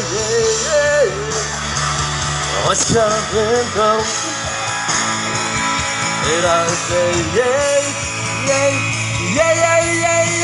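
Music: a pop song with guitar, a steady backing and a bending, wavering lead melody line that carries on without a break.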